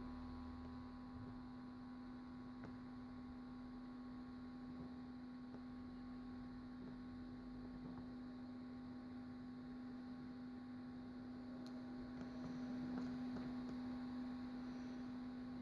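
Electric soldering gun humming steadily with the trigger held, a single even electrical hum that switches on abruptly just before and holds throughout, used to solder the new motor's wires.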